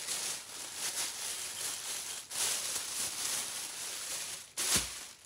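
Plastic shopping bag rustling and crinkling as it is handled and opened, with a louder thump about four and a half seconds in.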